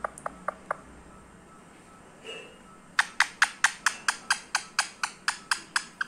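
Ringneck parrot making sharp clicks: four light ticks at the start, then from about three seconds in a fast, even run of louder clicks, about four or five a second.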